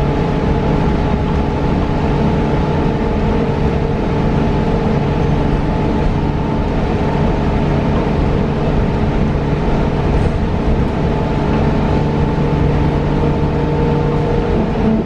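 Cabin noise inside a battery-electric New Flyer Xcelsior XE40 city bus: a steady hum made of a few held tones over a low rumble, with no change in pitch.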